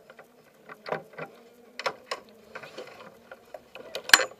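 Irregular clicks and knocks from the driver moving about in an open race-car cockpit, helmet and gear bumping close to the onboard camera; the sharpest knock comes near the end. A faint steady hum runs underneath.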